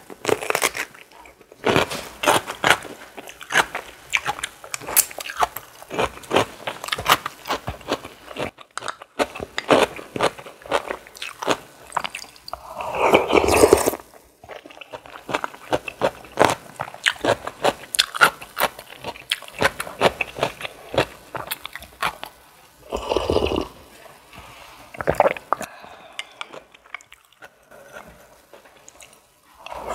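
Close-miked eating: a run of crisp crunchy bites and chewing, with two longer, louder noisy sounds about halfway and again about three-quarters of the way through.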